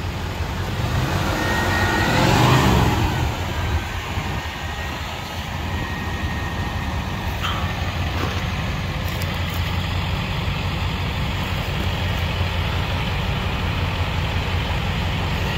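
Fuel-injected engine of a 1989 Chevy Caprice Brougham LS idling steadily. A passing vehicle swells and fades about two seconds in.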